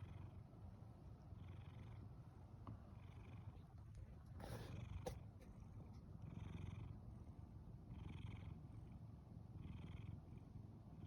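Brown tabby cat purring steadily, with a breathy, snore-like rasp about every second and a half as it breathes, the purring that seems to turn into snoring. A brief rustle comes about four and a half seconds in.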